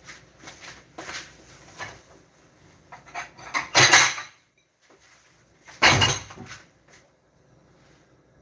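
Kitchen clatter: a run of light knocks and clinks, then two loud bangs about four and six seconds in.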